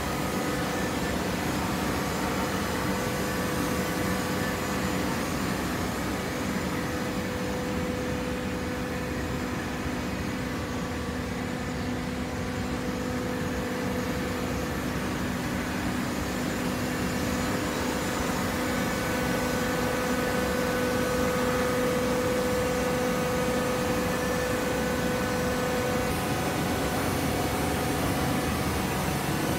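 Hydraulic waste paper baler running: the steady hum of its electric motor and hydraulic pump, with a constant drone, getting a little louder in the second half.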